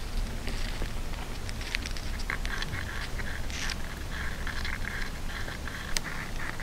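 Steady low rumble with scattered sharp clicks and short scratchy scraping noises, from an underground recording that the uploader takes for the sound of tunnel-digging work.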